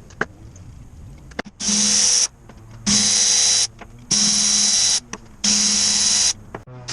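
A power tool run in four short bursts of under a second each, a loud noisy rush with a low hum beneath it.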